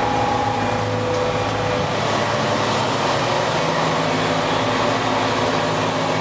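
Yacht's diesel engine running steadily to charge the lithium batteries through its two alternators, heard inside the cabin as a constant drone.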